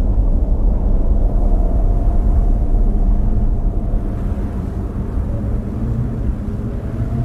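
Cold blizzard wind: a steady deep rushing rumble with a faint hum over it, easing a little in the second half.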